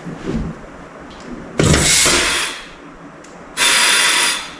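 Compressed air from an air gun fed through a valve stem into a Powerglide transmission case's clutch apply circuit: two hissing blasts, each about a second long, the first about one and a half seconds in and the second near the end. The air pressure is pushing up the stuck intermediate pressure plate.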